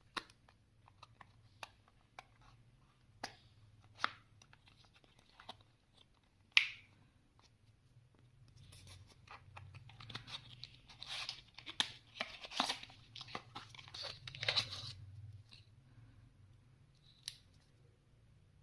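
Cardboard box of an Apple 20W power adapter being unboxed by hand: scattered taps and clicks of handling, a sharp snap about six and a half seconds in, then several seconds of paper tearing and rustling as the box's seal is torn open.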